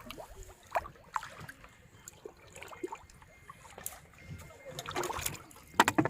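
Water splashing and trickling in small irregular splashes, with a louder burst of splashes near the end.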